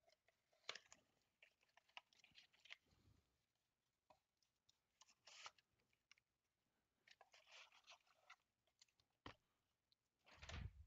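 Faint, scattered crinkling and tearing of plastic shrink wrap being peeled off a 2020 Bowman Mega Box of baseball cards, with a thump near the end.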